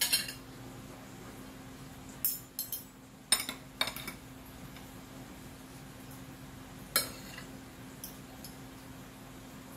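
Metal spoon and fork clinking and scraping against a plate while eating rice. The clinks are scattered, with a cluster about two to four seconds in and a sharp one about seven seconds in.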